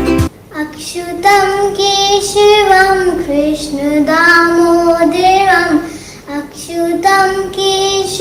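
A young girl singing a Hindu devotional bhajan solo, in long, slowly gliding phrases with a brief pause partway through.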